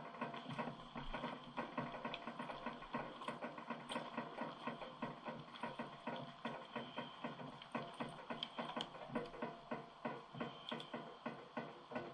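Quiet background music with a steady beat.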